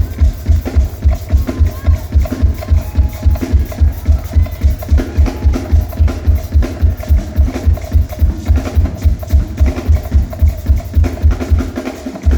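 A live band playing loud, fast music, driven by a heavy, steady kick-drum beat under percussion and melody.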